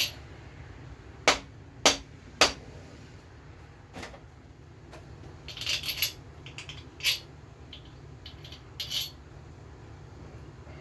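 Three sharp knocks about half a second apart, then a scatter of lighter metal clinks and rattles: hand tools and metal engine parts being handled during a crankshaft install.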